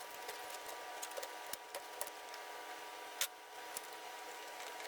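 Faint scattered clicks and light taps, with one sharper click about three seconds in, over a steady low hum.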